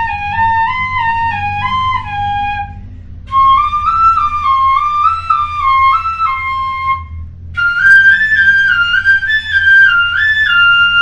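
A wooden pífano (Brazilian transverse fife) in C plays a quick stepwise exercise, up and down over the first notes of the scale at two notes per beat. It comes in three short phrases, each higher than the last (on G, then C, then F), with brief breaths between them.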